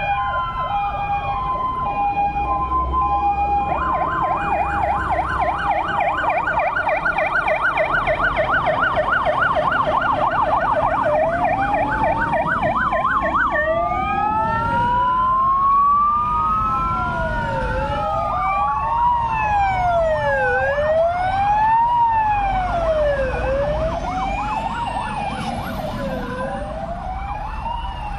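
Sirens of several fire engines sounding at once: a two-tone hi-lo at first, a fast yelp from about four seconds in, then several slow rising-and-falling wails overlapping each other, with the two-tone returning near the end. Truck engines rumble underneath.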